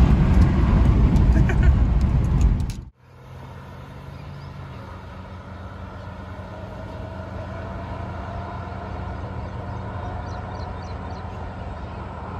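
Road and wind noise inside a moving SUV's cabin, which cuts off abruptly about three seconds in. Then comes a much quieter, steady low hum of SUV engines running some distance off, with a faint tone that slowly rises in pitch as they pull away.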